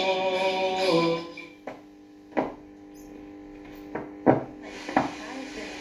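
1957 Zhiguli tube radio receiver playing male church singing through its speaker, which stops about a second in. Then comes a steady hum broken by about five sharp crackles.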